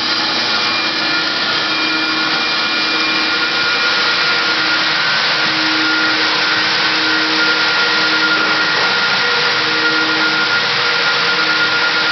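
Large drum vacuum used for dust collection on a floor sander, running steadily: an even, loud rush of air with a faint high whine held over it.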